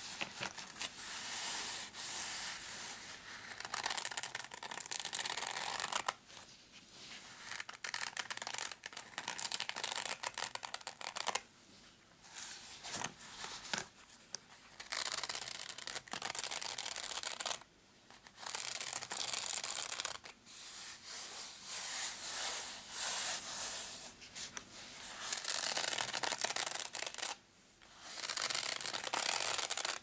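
Long fingernails scratching over a black fabric-covered case, in runs of a second or a few seconds with short pauses between.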